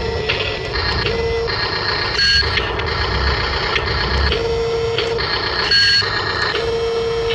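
Electric motors and plastic-and-metal gearboxes of radio-controlled construction models whining, a steady tone cutting in and out several times as the controls are worked.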